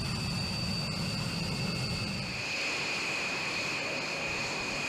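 B-1B Lancer's General Electric F101 afterburning turbofans running at taxi power: a steady high jet whine over a low rumble. A little past halfway through, the rumble drops away and the whine comes forward.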